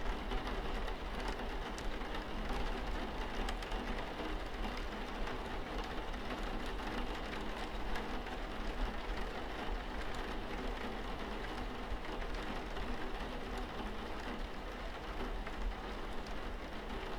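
Steady rainfall, an even hiss of falling rain with scattered small drop ticks.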